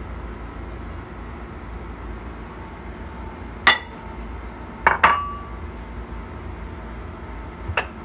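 White ceramic bowls clinking as they are moved and set down on a stone countertop: one clink, then a quick double clink that rings briefly, then a last one near the end, over a steady low kitchen hum.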